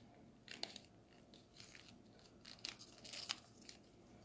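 Faint crinkling and crackling of a small folded sheet of origami paper being pressed and tucked between the fingers, in a few scattered short crackles.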